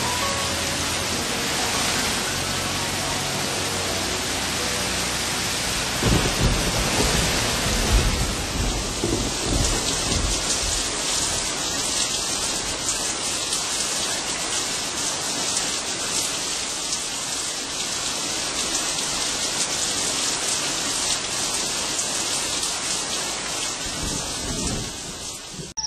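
Rain falling steadily in a nature-sound recording, with low rumbles of thunder from about six seconds in.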